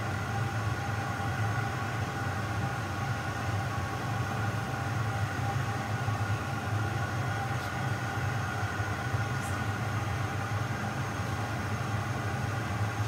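Steady roar and low hum of a glassblowing studio's molten-glass furnace and ventilation running, with a couple of faint high ticks about two-thirds of the way through.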